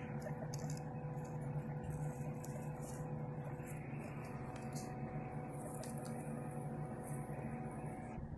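A steady low electrical hum with a few faint tones above it, and faint scattered rustles, as of guinea pigs moving in loose hay.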